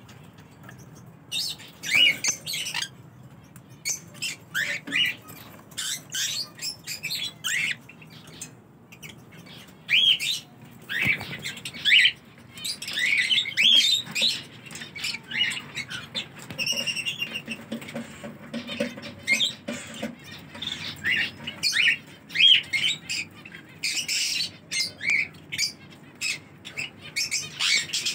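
Caged parrots chirping and squawking: many short, sharp calls in quick runs with brief pauses between them.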